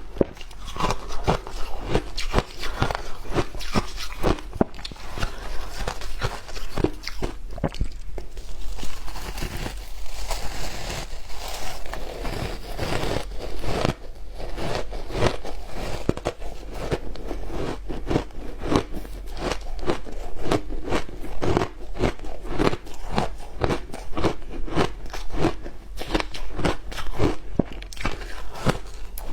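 Frozen matcha ice being bitten and chewed: a quick, continuous run of crisp crunches as the teeth break up the ice.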